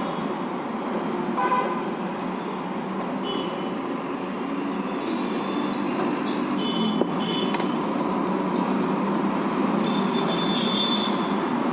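Steady street-traffic noise with a few short vehicle horn toots, about a second and a half in, near the middle and near the end.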